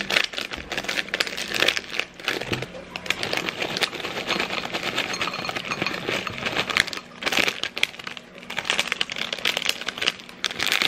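Plastic snack bag crinkling as it is shaken, with small crunchy snack pieces tumbling into a bowl in a dense, continuous run of small clicks and rattles.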